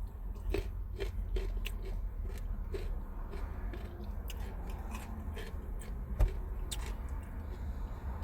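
Close-up chewing and biting of tacos, with irregular wet mouth clicks and an occasional crunch, over a steady low hum.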